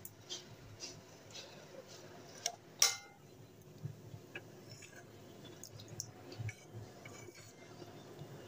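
Mostly quiet, with a few faint ticks and one sharper clink about three seconds in: small kitchen utensil sounds as sauce is drizzled over a serving bowl.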